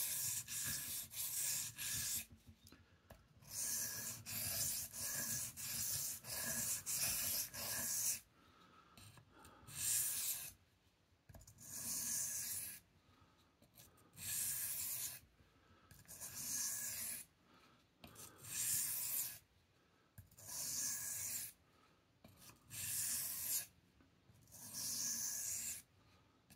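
Knife blade stroked across a Shapton Kuromaku 1000-grit ceramic whetstone, a scraping rub with each pass. The strokes come in a quick run over the first eight seconds or so, then one at a time about every two seconds.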